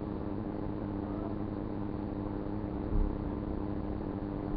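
Steady low hum with a hiss of background noise, and a brief low thump about three seconds in.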